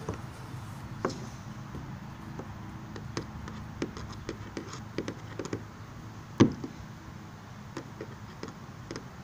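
A screw being driven through a nylon strap into a plastic kayak hull with a screwdriver: scattered small clicks and taps, with one loud knock about six seconds in.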